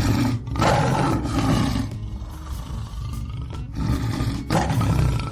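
Tiger roaring: a long roar in the first two seconds, a quieter stretch, then a second roar starting near the end.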